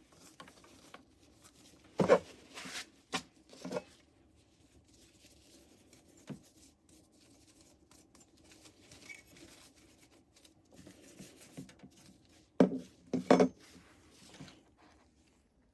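Parts of a disc repair machine being handled and wiped down: a scattering of hard plastic knocks and clatters, loudest a couple of seconds in and again near the end, with faint rubbing between.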